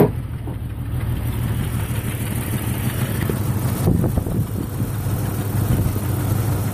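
1996 Jeep Grand Cherokee's straight-six engine idling roughly, with a brief knock about four seconds in. The owner reports a misfire on all cylinders and a very rich mixture.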